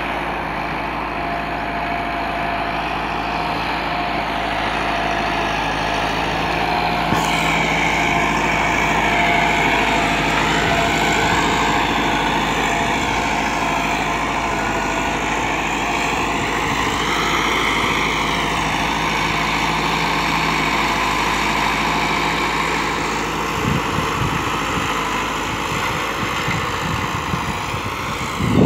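Massey Ferguson 385 tractor's four-cylinder diesel engine running steadily under load as it pulls a rotavator through the soil.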